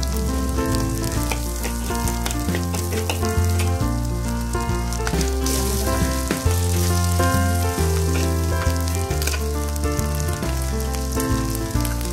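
Egg, sliced shallots and garlic, then chicken pieces, sizzling in hot oil in a wok while a metal spatula stirs and scrapes them. Background music with a changing bass line plays along.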